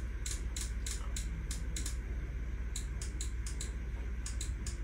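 Steady low hum from an amplifier test bench during an automated power sweep, with irregular sharp clicks several times a second.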